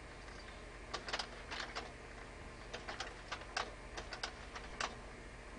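A run of about a dozen sharp, irregular clicks and taps, starting about a second in and stopping near the end, over a steady low electrical hum.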